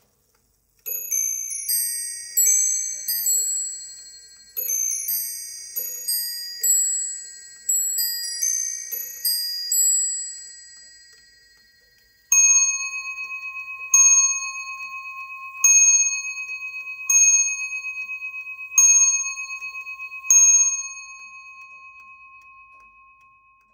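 Six-bell carillon of a Matthias Köttl baroque bracket clock, about 1750, playing a short tune of bell notes at changing pitches. A single bell then strikes six times, about one and a half seconds apart, striking the hour, and its ring dies away slowly.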